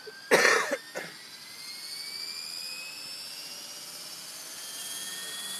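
Electric radio-controlled helicopter (Mikado Logo 800) whining in flight, its motor and rotor tone rising steadily in pitch. A short loud burst of noise comes about half a second in, with a smaller one about a second in.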